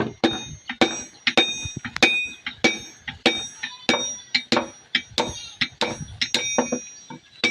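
Blacksmith's hammer striking metal on an anvil at about four blows a second, each blow with a bright metallic ring.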